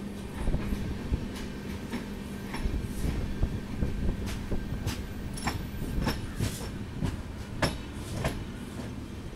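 Passenger train running on the track: a steady rumble with irregular clicks and knocks of the wheels over rail joints, and a faint steady hum.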